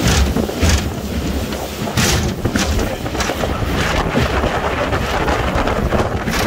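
Heavy wind buffeting the microphone as a small aluminum boat runs through rough, choppy water, with a series of sharp slaps as the hull hits the waves.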